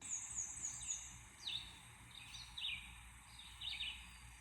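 Bird song: high, quick chirps that each sweep down in pitch, repeating in short clusters.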